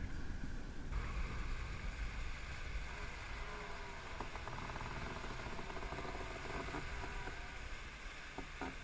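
Racing yacht sailing hard: water rushing and spraying along the hull, with wind buffeting the microphone as a steady low rumble.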